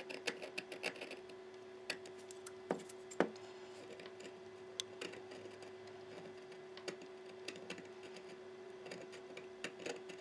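Needle file scraping in short, light strokes on the metal housing of an old fishing reel, heard as faint irregular ticks and rasps, smoothing down the spot where a protrusion was removed. A faint steady hum runs underneath.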